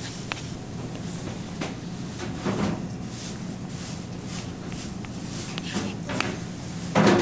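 Kitchen knife slicing through peeled orange segments and knocking on a plastic cutting board: several soft knocks, the loudest near the end, over a steady low hum.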